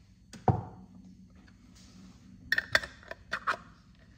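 A single thump about half a second in, then a quick run of clicks and scrapes near the end as a metal screw-top lid is fitted and twisted onto a glass jar.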